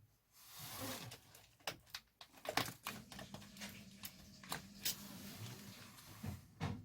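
Small DC cassette-deck motor wired to a 9-volt battery, with repeated clicks and taps as the wires are touched to the terminals and a faint steady hum from about three seconds in as the motor runs.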